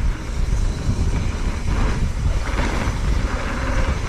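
Wind buffeting an action camera's microphone during a fast mountain-bike descent, with the tyres rolling over a dirt trail. A steady rumbling rush with no pauses.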